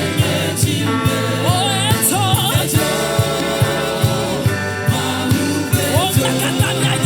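Gospel song with singing and choir vocals over a steady drum beat.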